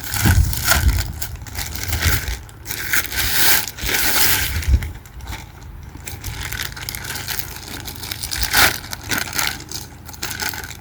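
A package being unwrapped by hand: crinkling, rustling and scraping of the packaging, with a few louder tearing or crackling bursts, one of them sharp near the end, and some low handling thumps early on.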